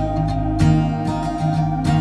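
Background music: acoustic guitar plucking and strumming over a sustained bass note, in a calm, gentle style.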